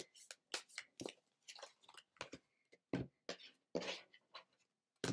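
A deck of tarot cards being shuffled by hand: faint, irregular card slaps and rustles, about three a second.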